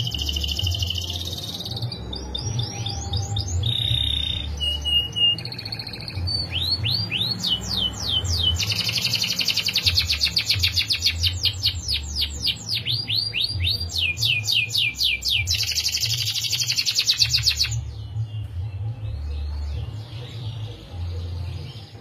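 Domestic canary singing: a long run of rapid rolling trills and fast repeated sweeping notes, breaking off about four seconds before the end.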